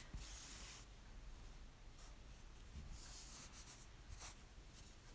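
Faint rustling of cotton sashiko cloth being handled and hand-stitched, in a few short scratchy bursts.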